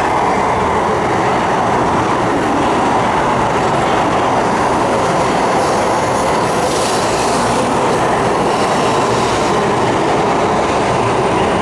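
Tokaido Shinkansen train running along the platform, a loud, steady rush of wheel and running noise that holds level throughout.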